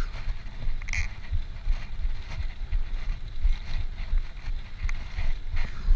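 Wind buffeting the microphone of a camera riding along on a bicycle: a gusty, uneven low rumble, with a few faint short ticks above it.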